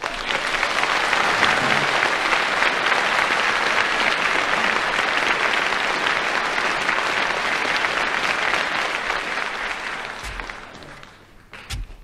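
Studio audience applauding, fading away about ten seconds in, followed by two dull thuds near the end.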